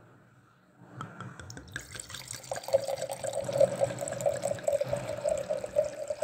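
White wine poured from a bottle into a wine glass: splashing from about a second in, then a fast, steady gurgle from the bottle neck as the glass fills.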